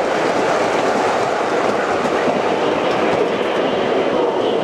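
Model train running along the track, a steady rolling noise of wheels on rail.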